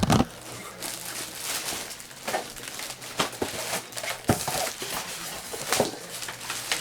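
Styrofoam packing and a plastic bag rustling and crinkling as an upright vacuum cleaner is pulled out of its box, with irregular clicks and a few knocks.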